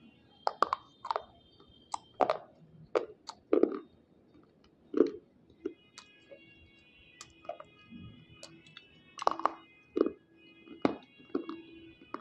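Very hard white unshaped slate being bitten and crunched between the teeth: a dozen or more sharp cracking crunches at irregular intervals, with chewing between them.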